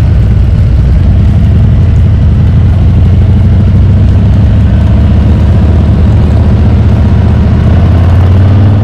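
Motorcycle engine running steadily while riding, loud, with a deep low steady note and rushing noise above it.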